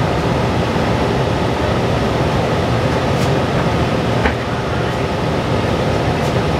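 Cabin noise inside a New Flyer XDE60 diesel-electric hybrid articulated bus underway: a steady engine and road noise with a few sharp rattles, the clearest about four seconds in.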